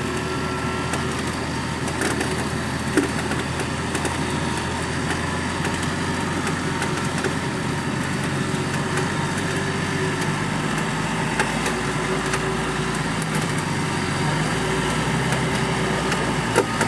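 Nissan Patrol GR's engine running steadily at low revs, with a few sharp knocks or clicks, one about three seconds in and another near the end.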